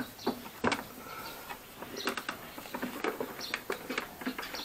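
Hands handling a Philips portable record player's plastic case: scattered clicks, knocks and light scrapes as its catches are worked, without the lid coming open.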